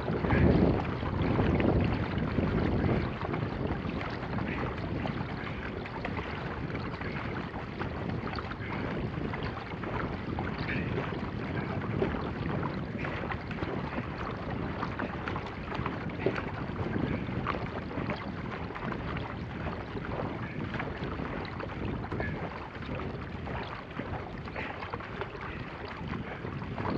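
Water rushing along the hull of an Epic 18 sea kayak paddled at sprint pace, with paddle strokes splashing and wind buffeting the microphone. Loudest over the first three seconds, then steady.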